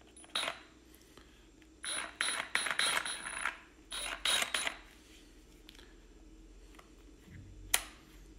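Clicks and short metallic rattles from a Milwaukee M12 FUEL Hackzall reciprocating saw being handled, in two clusters mid-way, with two sharp clicks near the end as a hand works its quick-release blade clamp.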